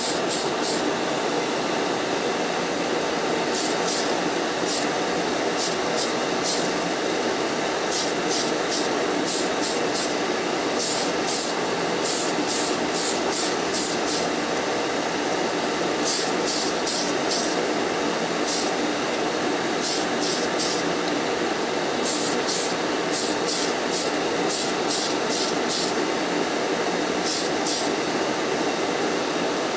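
Spray booth extraction fan running steadily, with repeated short hissing bursts from an aerosol can of Tamiya Surface Primer, often several in quick succession.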